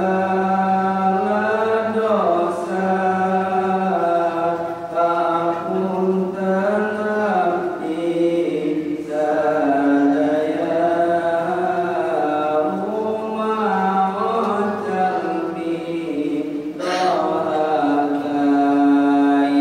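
Devotional chanting: voices sing a slow melody in long held notes with short breath breaks, ending on a long held higher note.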